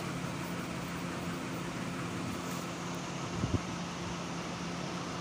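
Steady room hum and hiss with a faint, even low drone, and a brief low bump about three and a half seconds in.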